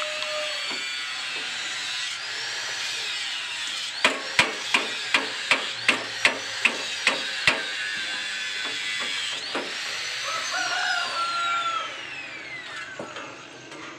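Workshop tool noise: about nine sharp metal knocks in quick succession, roughly two or three a second, over a steady hiss and a whine that rises and falls several times. Near the end the whine falls away slowly, like a power tool spinning down.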